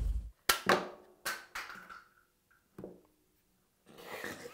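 A few sharp clicks and knocks, about five in the first three seconds, some leaving a short ringing tone, from a bar clamp and wooden parts being handled at a workbench.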